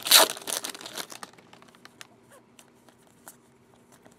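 Foil trading-card pack being torn open and crinkled for about the first second, then faint scattered clicks and rustle as the cards are handled.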